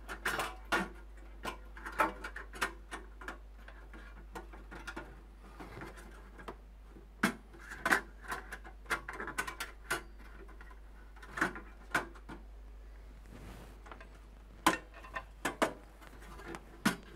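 Irregular light clicks, taps and scrapes of metal computer parts being handled: a PC I/O shield being worked into place in a mini-ITX case.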